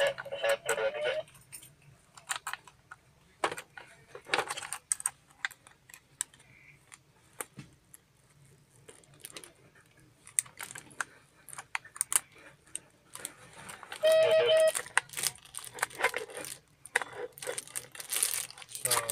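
Handling of a handheld two-way radio and its plastic packaging: scattered clicks, taps and rustles. There is a short steady tone about two-thirds of the way through.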